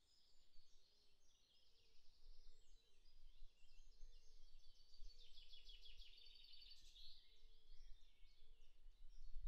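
Faint woodland birdsong: several birds chirping and trilling, with a rapid, dense trill a little past the middle.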